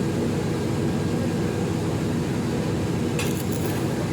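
Steady low machine hum holding several fixed tones, with a short burst of high hiss about three seconds in.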